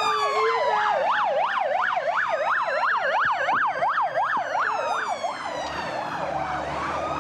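Several emergency-vehicle sirens sounding together: one with a fast yelping rise and fall of about two to three sweeps a second, over another whose tone slowly slides downward.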